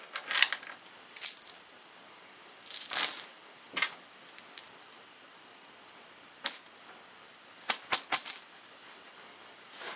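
Small game dice clicking and clattering against each other as they are dropped by hand into a cloth drawstring bag. The clicks come in short, irregular bursts.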